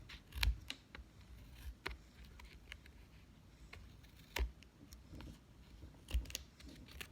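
Scissors trimming excess paper and tape from a cardboard craft piece: a few scattered, irregular snips and clicks.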